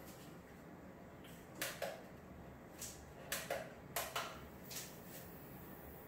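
Computer monitor's front-panel buttons clicking faintly, about seven light presses spread over a few seconds, as the monitor's input source is switched from one laptop to the other.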